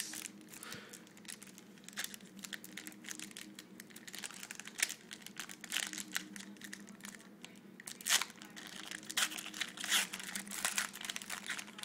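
Trading card packs and cards being handled: irregular crinkling and crackling of pack wrappers, with sharp snaps and rustles as cards are flipped through. A faint steady hum sits underneath.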